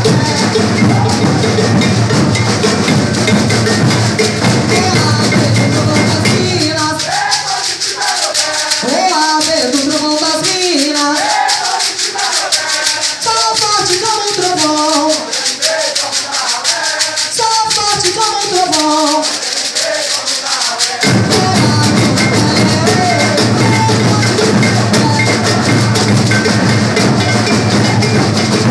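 Maracatu percussion group playing: alfaia bass drums pound under steady shakers. About six seconds in, the drums drop out, leaving the shakers behind a sung vocal line. The drums come back in about two-thirds of the way through.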